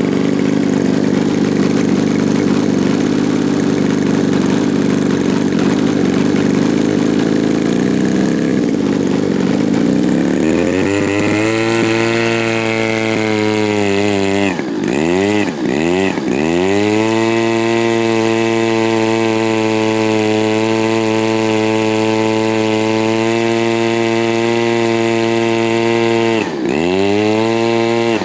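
RCGF 26cc two-stroke gasoline engine of an RC Pitts Special biplane running on the ground with its propeller spinning, being warmed up before flight. It runs rough and low for about ten seconds, then rises to a steady, higher, smoother tone, with a few brief dips in pitch.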